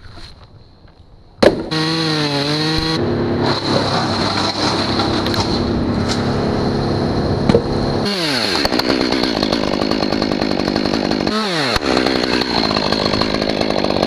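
STIHL chainsaw engine coming on loud about a second and a half in, its pitch rising and falling for a moment, then running steadily. Its pitch falls sharply about eight seconds in and dips again near eleven and a half seconds before picking back up.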